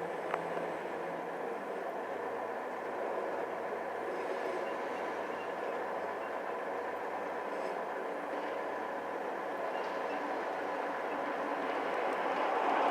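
Train cars rolling past on the rails in a steady rushing rumble, with a single sharp click just after the start. It grows louder near the end.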